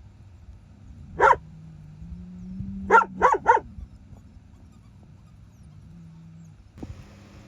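Dog barking: a single bark about a second in, then three quick barks in a row around three seconds in.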